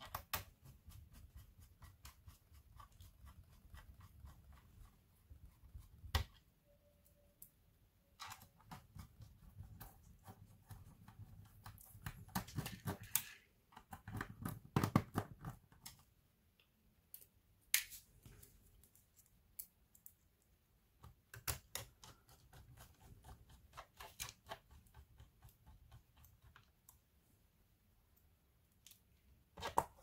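Screwdriver and fingers working on the plastic underside of a laptop: scattered clicks, taps and light scrapes, with louder bouts of handling about twelve and fifteen seconds in.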